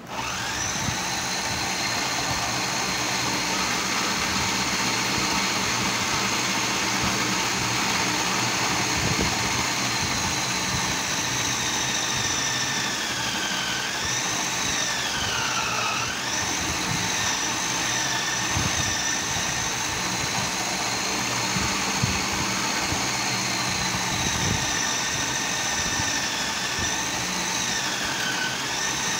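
Vitamax VM 502 food processor's electric motor switched on and running with a steady high whine as cabbage is pushed down the feed tube onto the grater disc. The pitch sags twice, about halfway through and again near the end, as the cabbage loads the motor.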